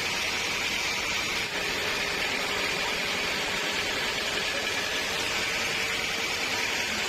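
Sawmill machinery running steadily: an even machine noise with a faint hum and no breaks.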